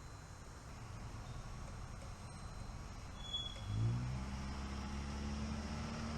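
A low mechanical hum starts up about four seconds in, rising briefly in pitch and then holding steady. A short high beep comes just before it.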